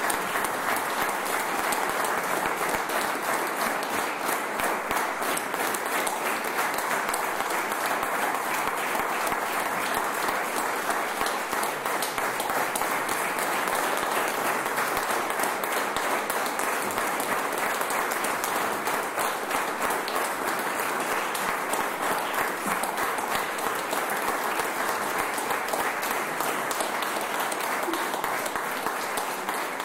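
Audience applauding steadily, many hands clapping at once in a dense, even patter.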